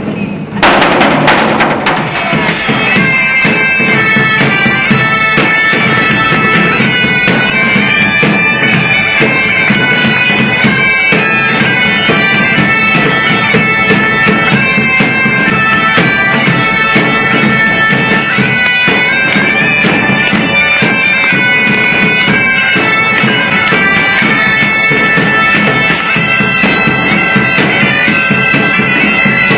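Bagpipes striking up with a sharp burst about half a second in, then playing a tune over a steady, unbroken drone.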